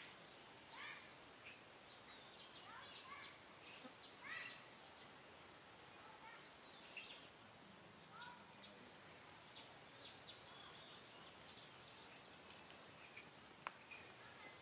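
Faint outdoor ambience: a steady high-pitched insect drone with scattered short chirping calls, and a single sharp click near the end.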